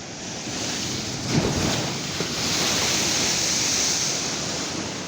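Ocean waves breaking against a sea wall: a sudden heavy crash about a second and a half in, followed by a long rush of churning water and spray that swells and then eases off.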